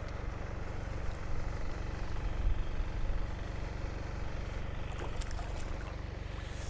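Steady low outdoor rumble with a light hiss, and a few faint clicks about five seconds in.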